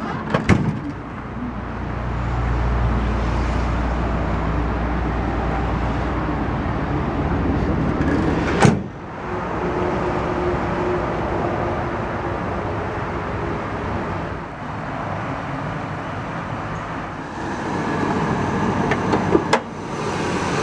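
2000 Ford F-150's 5.4-liter Triton V8 idling steadily. A sharp knock comes about nine seconds in, and a click near the end.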